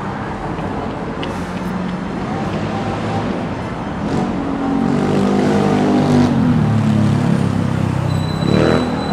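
City street traffic: a motor vehicle passes close by, getting louder from about four seconds in, its engine note falling in pitch as it goes. Near the end there is a short rise and fall in pitch.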